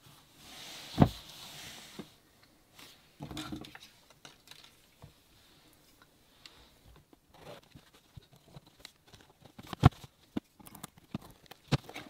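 Packaging being handled: a rustling slide lasting about two seconds with a sharp knock in the middle, another brief rustle, then scattered small clicks and taps, with two louder knocks near the end.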